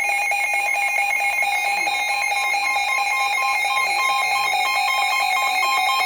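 Emergency Alert System attention signal from a broadcast alert: a loud, steady, harsh two-tone alarm, with the higher tone coming in and out from about two seconds in.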